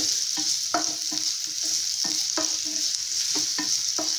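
Onion pieces sizzling in coconut oil in a non-stick frying pan, a steady high hiss, while a wooden spatula stirs and scrapes them in quick repeated strokes, a few a second.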